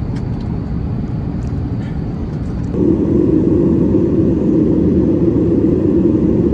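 Steady cabin noise of an Airbus A350-900 in cruise: engine and airflow noise. A little under halfway through it steps up suddenly to a louder, deeper noise that holds steady, with a few faint clicks before the change.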